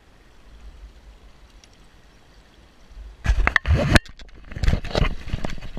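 A faint steady low rumble, then from about three seconds in a run of loud, irregular knocks and rubbing noises close to the microphone, with a short pause around the fourth second.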